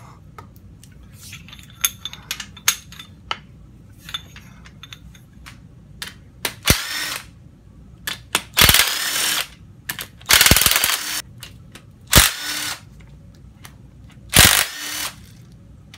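Cordless drill with a socket spinning out the crankshaft main cap bolts of a 3800 Series II V6 block, in five short bursts, none longer than about a second, in the second half. Before that, scattered light metallic clicks and clinks from the bolts and tools.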